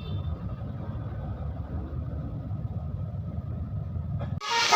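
Low, steady rumble of a vehicle engine. About four seconds in it cuts abruptly to a loud telolet basuri bus horn playing a melody of several tones with sliding notes.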